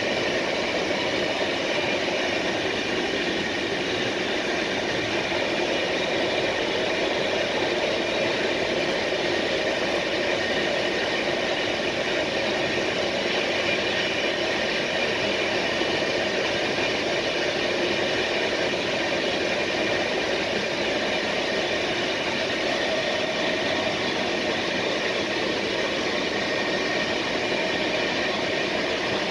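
Passenger train running steadily at speed, heard from inside its rear coach: an even rumble of wheels on rail with a steady high whine over it.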